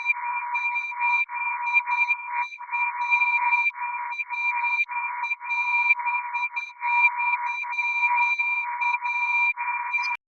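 Radar detector alert sound: a buzzy electronic tone that stutters in quick, irregular chirps with short gaps, cutting off suddenly near the end.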